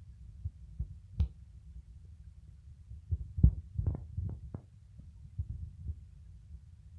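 A tabby cat licking its fur close up: a run of short, soft wet clicks and low thumps from its tongue, closest together about three to four seconds in, over a steady low rumble.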